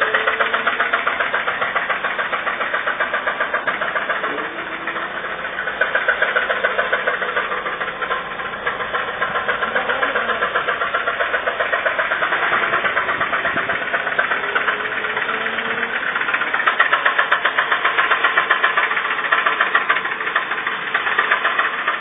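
Toyota RAV4's 1AZ four-cylinder petrol engine running with a rapid, regular knock. The knock is bad enough that the engine needs replacing.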